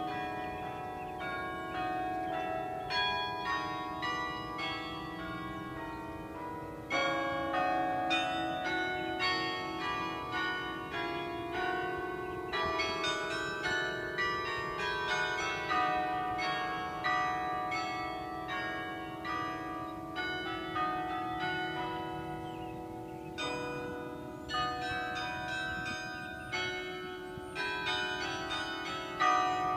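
Carillon being played: a piece of many struck bell notes in melody and chords, each ringing on and overlapping the next, growing louder about seven seconds in.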